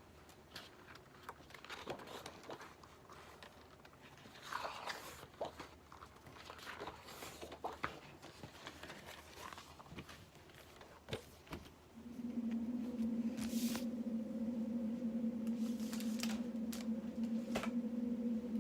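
Packaging rustling and clicking as it is handled and opened. About twelve seconds in, a steady low hum starts and keeps going.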